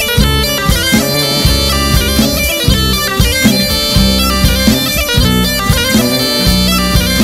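Tulum (Black Sea bagpipe) music: a fast, ornamented melody over a steady low beat.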